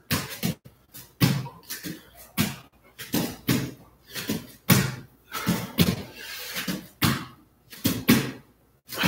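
Push-ups on a foam floor mat with hands switching position: dull thumps of palms and bodies landing on the mat, about two a second, unevenly spaced.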